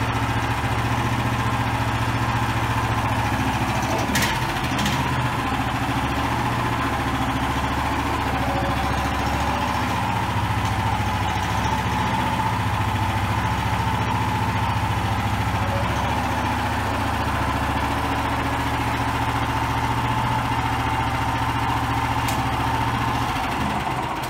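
The 13 hp single-cylinder petrol engine of a Motor Sich walk-behind tractor, running steadily at idle. There is a sharp click about four seconds in and another near the end, and the engine is switched off at the very end.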